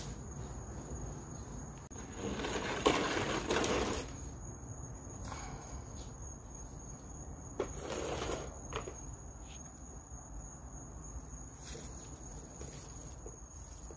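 Crickets chirping in a steady high trill. Two longer rustling, scuffing noises come a couple of seconds in and again in the middle, with a few light clicks.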